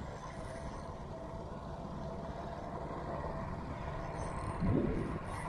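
Steady wind rumble on the microphone over choppy open water, swelling briefly near the end.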